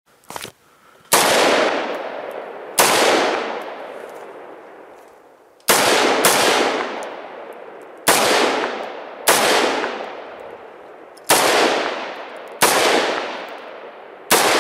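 Home-built AR-15 rifle fired semi-automatically: nine single shots at uneven intervals of one to three seconds, each followed by a long echoing decay. The rifle cycles without malfunctions.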